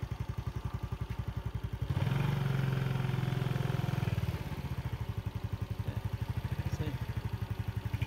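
Motorbike engine running with a steady pulsing beat, then louder and fuller for about two seconds starting about two seconds in, as the bike is ridden while turning around, before settling back to its steady beat.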